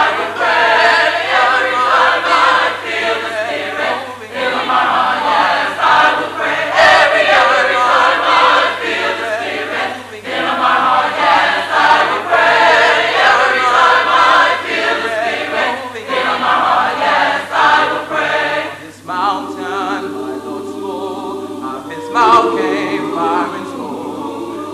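A church congregation of men and women singing together as a choir, many voices at once. About three-quarters of the way through the singing grows thinner and quieter.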